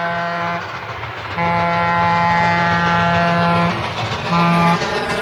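Test sound for the screen-center speaker of a theater surround system: a loud, buzzy horn tone sounding in blasts over a rushing noise that grows louder. One blast ends about half a second in, a long one follows, and a short one comes near the end.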